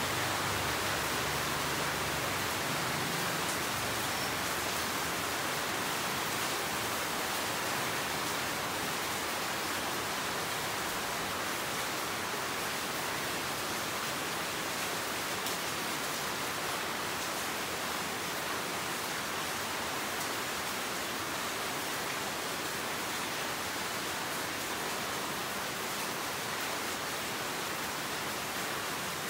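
Steady rain falling, an even hiss throughout. A low hum fades away in the first few seconds.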